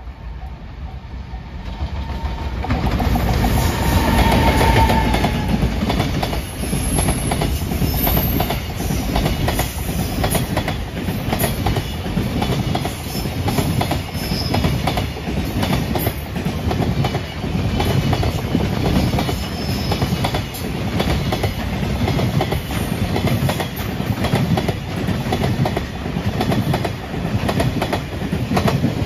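Long container freight train passing close by, its wagon wheels clattering over the rail joints in a steady, repeating rhythm. The sound builds over the first few seconds as the train arrives, then holds loud as the wagons roll past.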